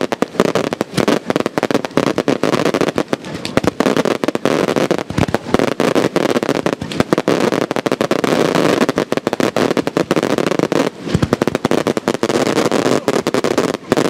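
Maltese beraq shells bursting in a dense, rapid barrage of sharp bangs and crackles, with a brief dip just after eleven seconds.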